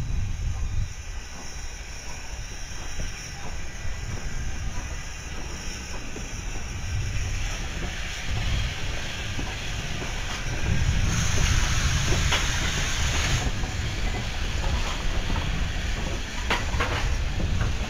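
Strasburg Rail Road No. 90, a 2-10-0 steam locomotive, rolling past with its tender and a coach, with a low rumble throughout. A burst of steam hiss lasts about two seconds a little past the middle, and a few sharp wheel clicks over the rail come near the end.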